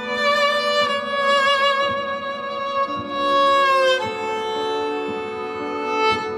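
Viola played through a loop pedal: sustained bowed notes layered over a looped lower line, the melody stepping down to a lower note about four seconds in.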